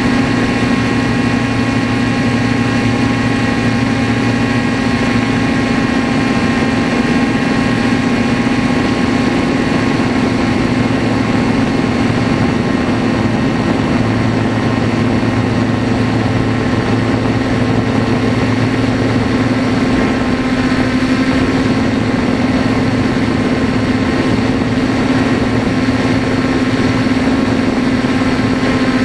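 DJI F450 quadcopter in flight: its four 2212 920 kV brushless motors and propellers hum steadily, several tones held at an almost constant pitch, over a rushing noise.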